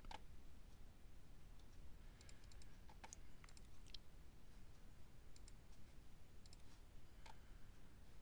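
Faint computer mouse clicks, a dozen or so scattered irregularly, over a low steady room hum.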